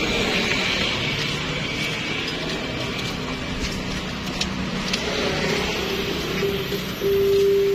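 Street traffic noise with vehicles running, and a vehicle horn sounding one steady note, loud for about a second near the end.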